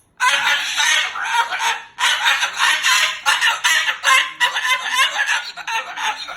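Moluccan cockatoo giving loud, raspy squawks in several long bouts, starting just after a moment of silence.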